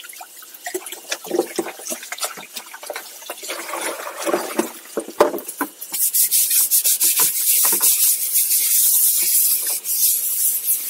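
Hand scrubbing of a greasy bicycle drivetrain part: irregular rubbing strokes that turn into fast, steady back-and-forth scrubbing about six seconds in.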